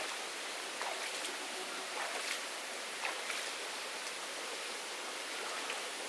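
Shallow stream flowing steadily, with a scatter of short splashes and drips as a person bathing in it scoops and splashes water with her hands.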